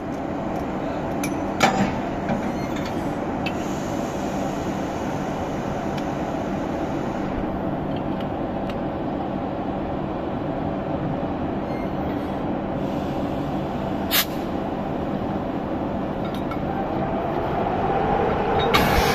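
Steady running noise of a standing HŽ series 1141 electric locomotive while it is coupled to a passenger coach, with sharp metal clinks from the coupling work, two of them loud, about two seconds and about fourteen seconds in. The noise grows a little louder near the end.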